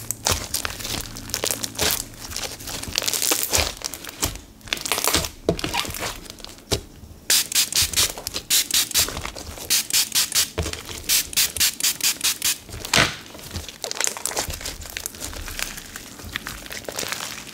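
Glossy slime packed with foam flower charms and foam rings being squeezed, poked and stretched by hand, giving wet clicks and pops. The base is thick enough to make it poppy. In the middle comes a run of quick, sharp pops, about four a second.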